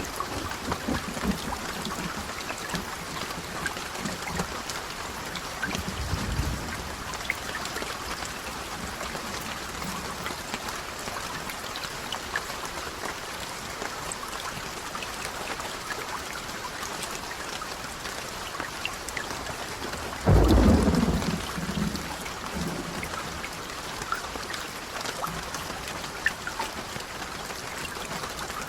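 Steady rain falling, with a low rumble of thunder about six seconds in and a louder, sudden thunderclap about twenty seconds in that rolls off over the next couple of seconds.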